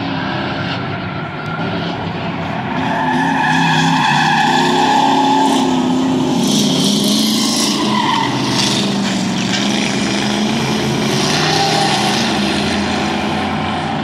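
Several stock car engines running hard as the cars race past, with tires squealing through the turn. The sound swells a few seconds in and stays loud.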